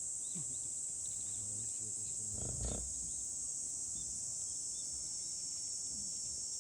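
Insects droning steadily at a high pitch, with small chirps over it and a brief low sound about two and a half seconds in.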